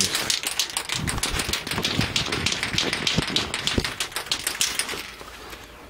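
A spray paint can shaken hard, its mixing ball rattling in quick irregular clicks with a few dull knocks. The rattling stops about five seconds in.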